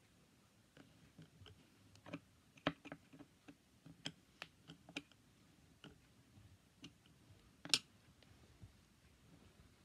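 Light, irregular clicks and taps from hands working a metal drain strainer fitted into a plastic tub sink, with one sharper click about three-quarters of the way through.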